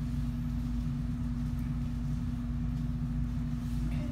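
Steady low mechanical hum with one constant tone over a rumble, unchanging throughout.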